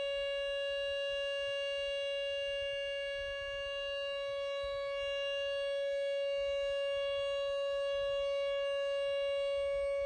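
Outdoor tornado warning siren sounding a steady tone that holds one pitch throughout: the alert signal meaning seek shelter now, a tornado has been spotted.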